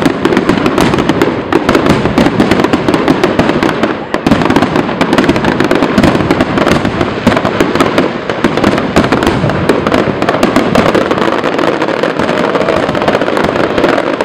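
Aerial fireworks display going off in a dense, continuous barrage: overlapping bangs and crackling with no break.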